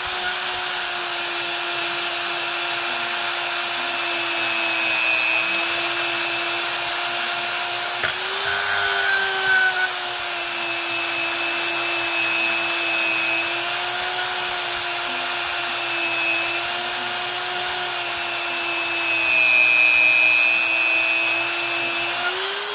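Handheld high-speed rotary tool spinning a rubber abrasive wheel against the rusty steel braking surface of a motorcycle brake drum, a steady whine whose pitch wavers slightly as the wheel is worked back and forth: grinding the rust off the drum.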